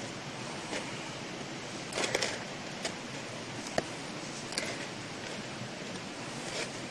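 A metal fork scraping and tapping in crumpled aluminium foil and against a paper plate, a few scattered short clicks and brief crinkly scrapes, over a steady background hiss.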